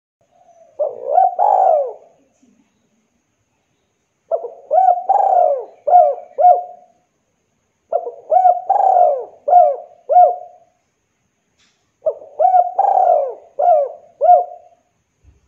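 Spotted dove cooing: four phrases of low coos, the first short and the next three each a quick run of several notes, with pauses of about a second between phrases.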